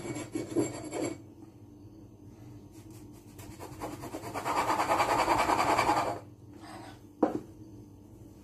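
A drinking glass pressed and twisted into rolled doughnut dough on the counter to cut rounds: a scraping rub lasting about two seconds in the middle, with a single knock near the end.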